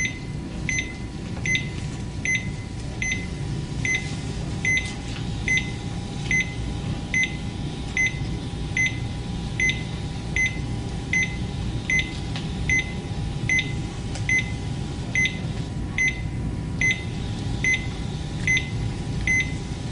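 Portable cardiac monitor-defibrillator beeping once per heartbeat, a short high beep about every 0.8 s (about 75 a minute, matching the displayed heart rate), over the steady hum of the unit and its printer feeding out the 12-lead ECG strip.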